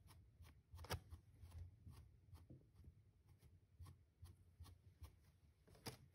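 Faint scratchy strokes of a black plastic fine-tooth comb brushing through a plush doll's long white faux-fur wig, with a sharper tap about a second in and another near the end, the last as the comb is set down on the wooden desk.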